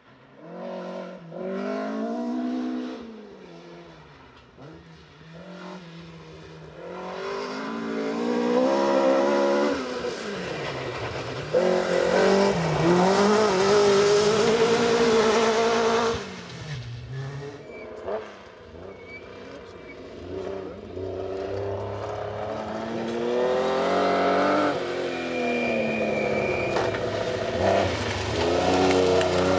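Rally car engines at full throttle, revving up and falling back through gear changes as the cars approach and pass, several times over. It is loudest in the middle.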